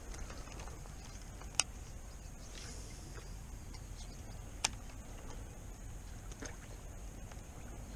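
Small lake water lapping against the rocky shore, a low steady wash, with two sharp clicks, one about a second and a half in and another about three seconds later.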